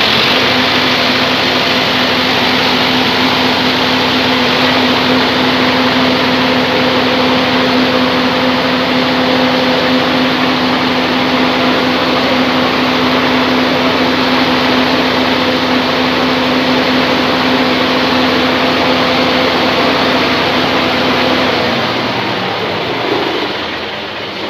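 Sawmill band saw machinery running loud and steady, a constant hum under a dense noise. Near the end the hum drops in pitch and the sound fades as the machine winds down.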